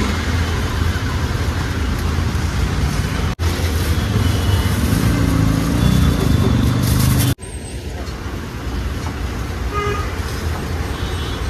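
Steady road traffic noise with a few short horn toots. It cuts off abruptly twice and resumes at once.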